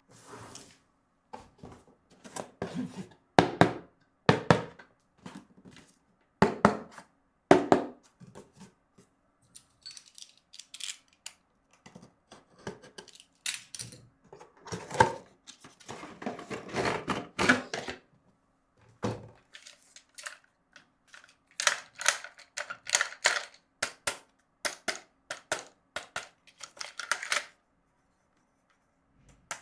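Plastic toy and its packaging being handled: irregular clicks and knocks, a longer rustle around the middle, then a run of quick clicks near the end.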